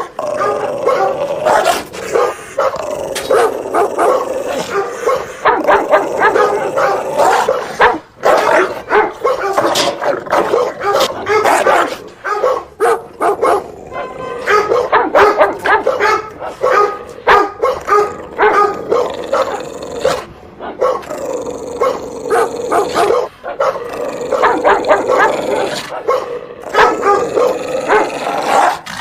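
Dog barking over and over in fast runs of barks, with brief pauses about 8, 13, 20 and 23 seconds in.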